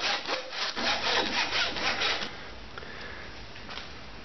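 Hacksaw cutting through the metal can of a large capacitor held in a vise, quick even rasping strokes at about four or five a second. The sawing stops about two seconds in, leaving only low background noise.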